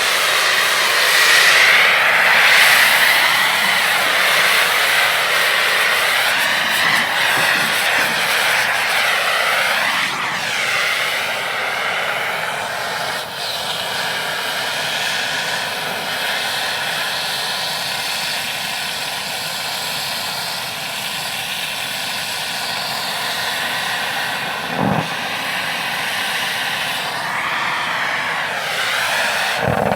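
Air torch blowing a steady, loud hissing flame against metal, its tone slowly sweeping up and down as the flame moves. A short low thump about 25 seconds in.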